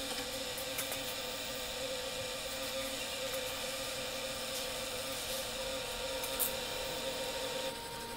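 Maslow CNC chain motor running with a steady whine as it pays out chain during calibration, then stopping abruptly about seven and a half seconds in. A few faint ticks come through as it runs.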